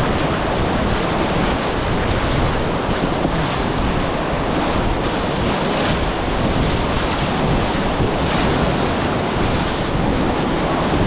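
Whitewater of a class III river rapid rushing steadily and loudly around a paddle raft, with wind buffeting the microphone.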